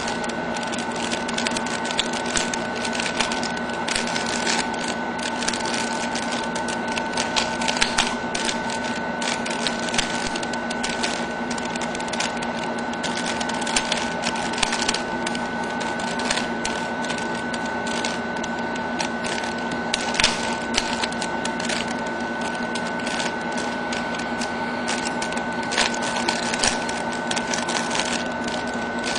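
Plastic pieces of a mirror (bump) cube clicking and clacking in quick, irregular runs as the cube is turned fast by hand, over a steady hum.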